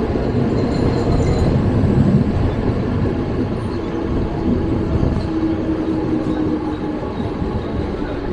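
Mumbai suburban local train, an electric multiple unit, running along a station platform, heard from its open doorway: a loud, steady rumble of wheels on rail. A faint steady tone comes in about four seconds in and fades about three seconds later.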